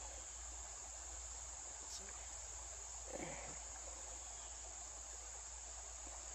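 Steady high-pitched chorus of insects, such as crickets, chirring without a break. A brief low sound comes about three seconds in.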